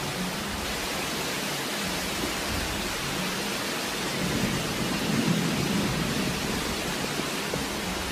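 Storm of strong wind and rain: a steady roar, swelling a little midway, loud enough to be blown debris weather.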